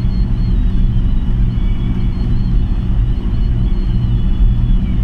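Steady low rumble of engine and road noise inside a bus cruising at highway speed.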